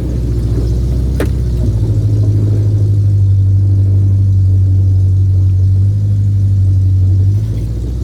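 Off-road vehicle's engine revving up and held at steady high revs for several seconds, then dropping back near the end. A sharp click comes about a second in.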